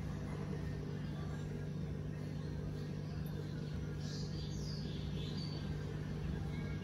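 Steady low hum of aquarium pump equipment, with a few short bird chirps about four seconds in.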